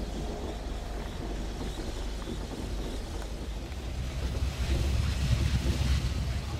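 Wind blowing across the microphone, a steady low rumble that grows louder and gustier in the second half.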